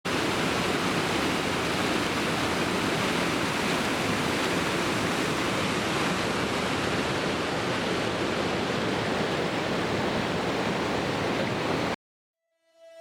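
Steady rushing of a waterfall, even and unbroken, cutting off abruptly about a second before the end.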